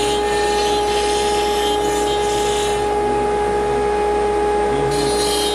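Water-cooled CNC router spindle running with a steady high whine while its bit cuts an inlay piece from mahogany; the cutting noise comes in passes, easing off for about two seconds past the middle and then picking up again.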